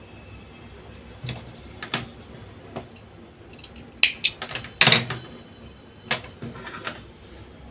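Irregular small clicks and taps of hands working a Panasonic hair trimmer's blade assembly while thin wire is fitted into its locking system, with a cluster of louder clicks about four to five seconds in.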